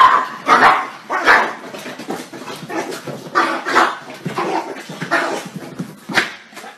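Small dog barking in a run of short barks, about one every half second to a second, loudest at the start.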